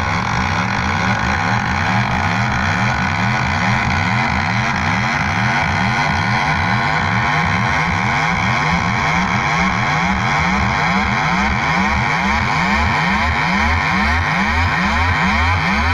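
Loud electronic dance music over a stage sound system: a build-up of deep, buzzy rising sweeps repeating about three times a second, sounding much like an engine revving.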